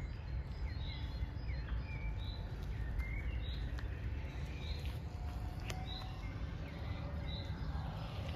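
Songbirds singing: a short high note repeated about once a second, with a few lower chirps, over a low steady rumble.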